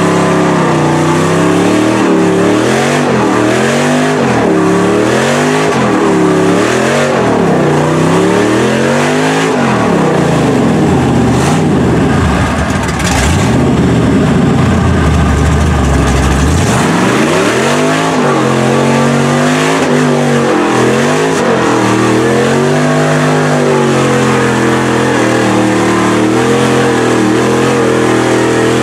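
LS V8 engine of a lifted Chevy Silverado mud truck revving hard in repeated pulses as the truck churns through deep mud. From about ten seconds in it is held at very high revs for some six seconds, then it drops back to more rising-and-falling revs and runs steadier near the end.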